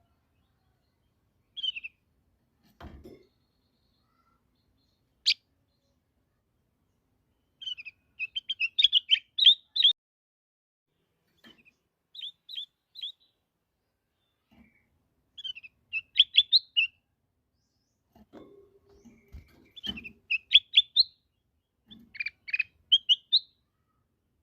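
Kutilang emas bulbul singing in short bursts of quick, bright chirping notes, repeated every few seconds. A single sharp note comes early, and a few faint low knocks come near the start and past the middle.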